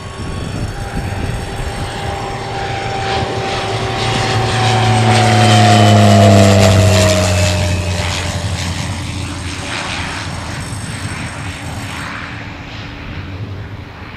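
Pilatus PC-7 turboprop trainer passing low on its landing approach, engine and propeller drone growing to its loudest about six seconds in. The pitch drops as it goes by, then the sound fades away.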